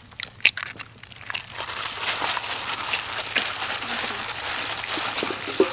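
Thin plastic food-prep gloves crinkling and wet flour-and-egg coating squelching as hands knead and turn whole raw chickens in a metal bowl: a few sharp clicks in the first second and a half, then steady crinkling and squishing.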